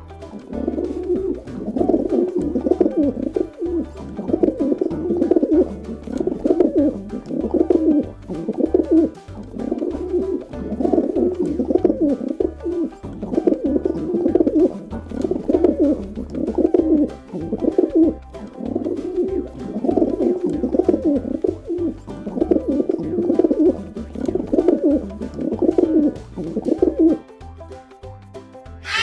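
Pigeons cooing over and over, low calls about one a second, stopping shortly before the end.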